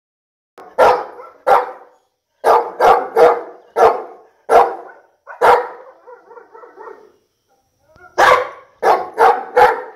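A large brindle dog barking in single loud barks, about seven over the first five seconds. After a short pause a quicker run of four barks comes near the end.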